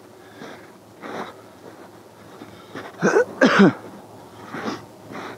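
Footsteps crunching in snow at a walking pace, about one step every two-thirds of a second. A little past halfway a man gives a loud two-part sneeze, the loudest sound.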